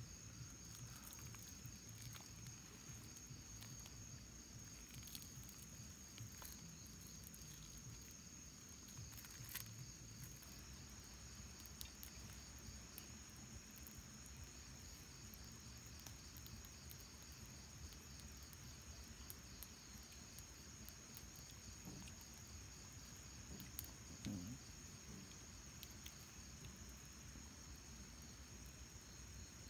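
Night-time insect chorus of crickets, a steady high-pitched trill that never lets up, with faint scattered clicks and a soft low thud late on.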